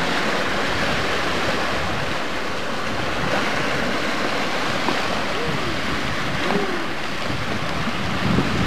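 Steady rushing of wind on the microphone and waves on open water.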